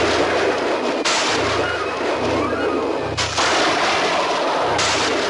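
Film sound effect of a cloudburst: a loud rushing hiss of rain, broken by sudden cracks like thunder about every one and a half to two seconds.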